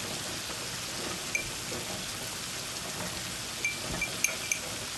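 A paste of onion, tomato, ginger and garlic sizzling steadily as it fries in sesame oil in a pan, with a few faint clicks in the second half.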